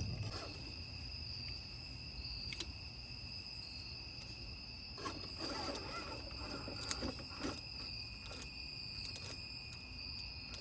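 Night insects trilling steadily at two high pitches. Brief clicks and short bursts of scraping noise come in and out through the second half.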